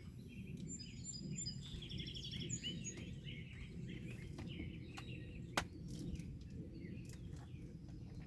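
Birds chirping in short calls over a steady low background rumble, with a few light clicks and one sharp click about five and a half seconds in.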